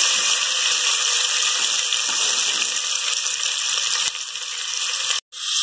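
Sliced onions sizzling in hot oil and ghee in an aluminium pressure cooker, stirred with a wooden spatula at first. The sound cuts out for a moment near the end.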